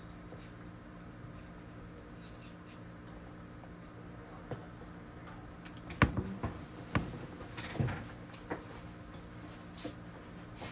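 Steady low hum of a small office room, with a cluster of sharp knocks and clicks about halfway through as a person gets up from a chair and moves about, and a few lighter taps near the end.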